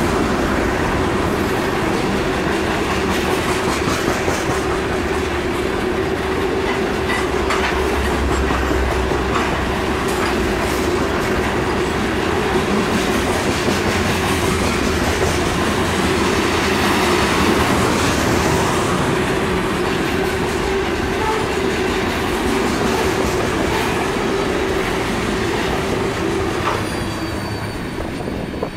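Freight train's covered hopper cars rolling past at close range, wheels clacking over the rail joints with a steady hum beneath. The sound fades near the end as the last cars go by.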